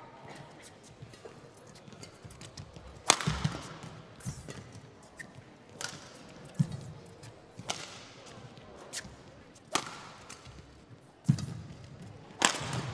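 Badminton rally: rackets strike a feather shuttlecock with sharp, short cracks, about eight of them roughly a second apart starting about three seconds in, some with low thuds from footwork on the court.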